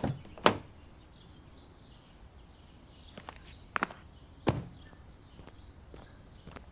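Sharp clunks and knocks of a Kia Rio hatchback's door being opened and slammed shut, the loudest just after the start and another about four and a half seconds in, followed by footsteps on a concrete sidewalk. Faint birds chirp now and then.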